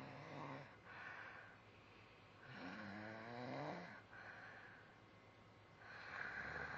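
Slow, regular snoring: airy hissing breaths alternate with pitched, rattling snores, the longest in the middle, rising in pitch as it goes.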